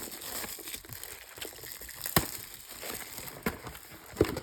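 Plastic wrapping crinkling and crackling as a trading-card hobby box is handled and unwrapped, with a couple of sharp snaps.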